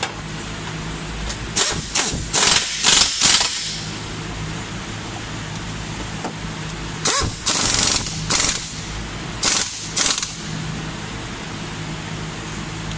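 Air-powered wrench running in short loud bursts as it drives in the bolts of a new engine mount: a cluster of four in the first few seconds and more about halfway through, over a steady low hum.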